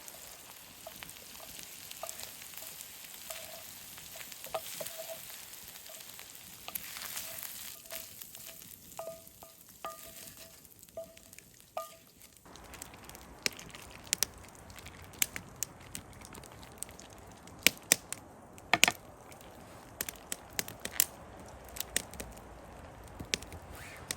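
Food frying in a cast iron skillet over an open fire: a steady sizzle with crackles. In the first half, short high peeps repeat. About halfway the sound changes suddenly to denser crackling with sharp clicks, the loudest a little past the middle.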